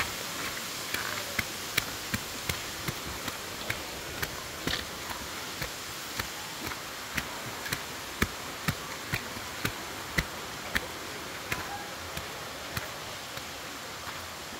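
Footsteps at an even walking pace, about two sharp steps a second, over a steady rush of falling water.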